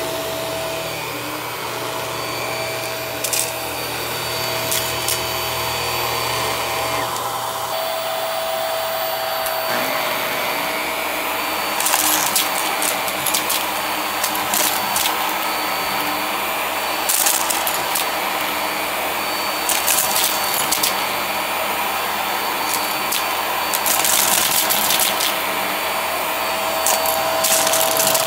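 Hart bagless upright vacuum cleaner running steadily over carpet, with a steady motor whine. From a little before halfway through, heart-shaped confetti is sucked up into the nozzle in repeated clusters of sharp clicks and rattles.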